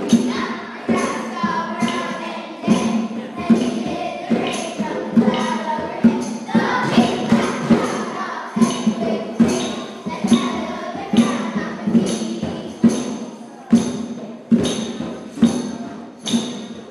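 Music for a children's dance performance: a steady drum beat, a little under one strike a second, with jingles over it, and a group of children's voices singing along in two stretches.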